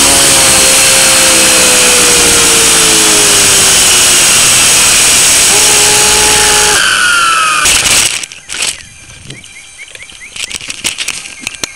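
Blade mCP X BL micro RC helicopter's brushless motor and rotor, heard close up through the camera mounted on it: a loud whir whose pitch slowly falls, cutting off about eight seconds in. A few knocks from handling follow.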